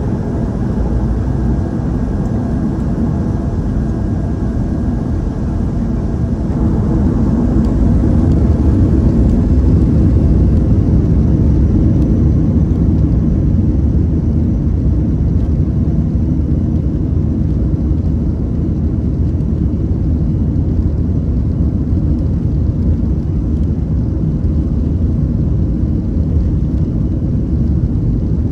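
Cabin noise inside a Boeing 737-500 airliner: its CFM56 jet engines and the airflow make a steady deep rumble that grows heavier about eight seconds in. A faint high whine fades out in the first few seconds.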